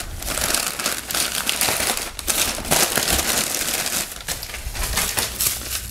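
Packing paper being pulled apart and crumpled by hand: continuous crinkling and rustling with many small crackles.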